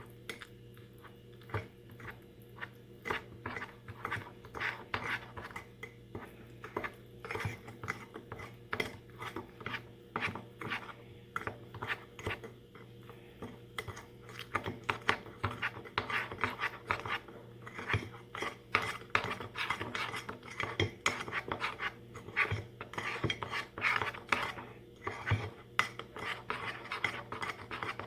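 A utensil stirring brownie batter in a mug, with repeated clinks and scrapes against the mug's sides, several a second. The stirring grows louder about halfway through.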